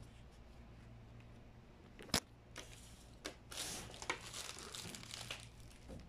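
Handling noise of a small V8 live sound card and its cables being moved on a tabletop: a sharp click about two seconds in, then a few seconds of rustling and scraping.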